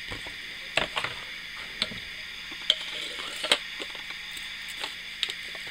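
Scattered clicks and crackles of a plastic blister pack being pulled apart by hand and a sheathed survival knife being handled as it comes out of the packaging.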